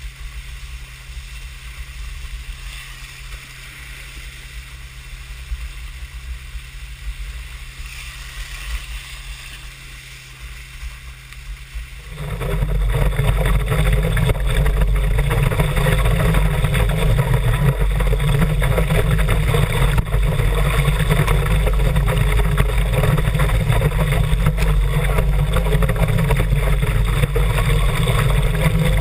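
Motorboat engine running under way, a steady low drone. It jumps abruptly to much louder about twelve seconds in and stays loud and steady.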